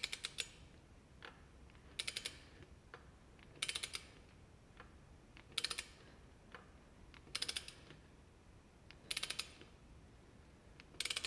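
Ratchet head of a click-type torque wrench clicking in quick runs of several clicks, one run about every two seconds, as the handle is swung back between pulls while tightening a square-taper bicycle crank bolt. The wrench, set to 40 newton metres, has not yet reached its torque setting.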